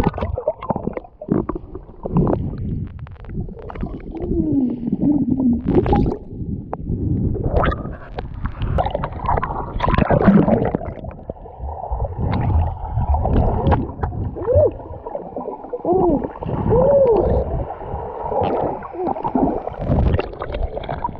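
Sea water sloshing and gurgling around a GoPro held underwater and moved through the shallows, breaking the surface now and then, heard muffled through the camera with uneven surges.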